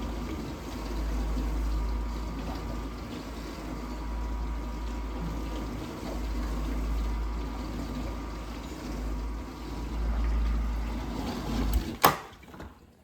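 Vintage dishwasher's wash pump running, with water swishing in the tub over a steady low hum. The owner suspects the pump is restricted because the water no longer hits the tub at full force. About twelve seconds in there is a sharp click, and the running sound cuts off suddenly.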